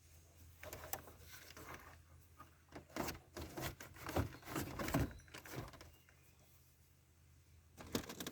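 Plastic dash pad sliding over the dashboard of a third-generation Camaro, with scattered knocks and scraping rattles, thickest in a run from about three to six seconds in as it is pushed into place.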